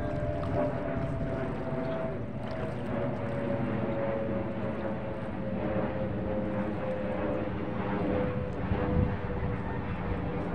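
A motor drones steadily, its pitch sliding slowly lower, over a low rumble of wind or water.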